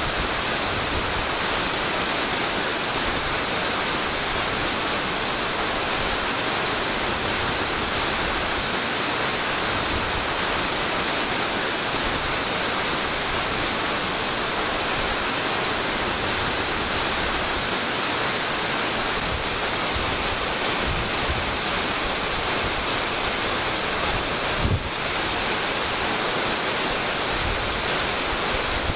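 A mountain waterfall rushing steadily, a continuous even sound of falling water. A brief low thump comes about three-quarters of the way through.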